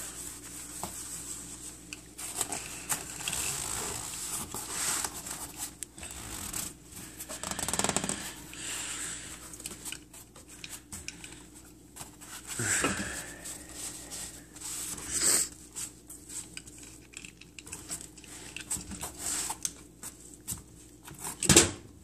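African grey parrot's beak clinking and scraping on the tops of aluminium soda cans, with scattered small taps and rattles. Near the end a louder clatter sounds as a can tips over onto the wooden floor.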